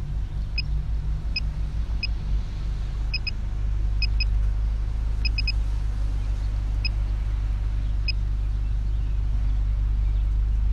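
Short high electronic beeps, about seventeen, at irregular spacing and sometimes in quick twos and threes, from the drone's remote controller and app as the camera exposure is stepped darker. Under them runs a steady low rumble that grows louder about four seconds in.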